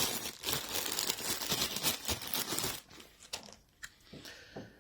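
Packaging crinkling and rustling as a small power adapter is unwrapped, for about three seconds, then a few light clicks.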